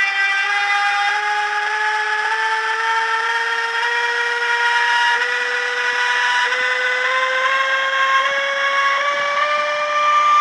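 ESU LokSound 5 sound decoder in a Roco model of a DB Class 185 electric locomotive, playing the traction inverter whine through its upgraded speaker as the locomotive accelerates. Several tones rise together in small steps.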